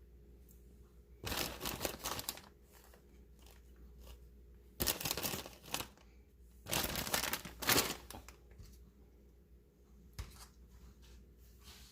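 Shredded lettuce rustling and crunching in three short bursts as it is handled and spread by hand, with a single light tap near the end.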